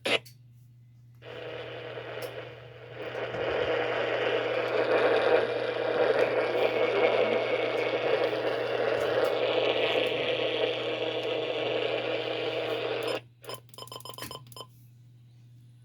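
Radio static hissing from a portable AM/FM radio tuned off-station. It starts about a second in and cuts off abruptly near the end, followed by a quick run of clicks. A steady low hum runs underneath.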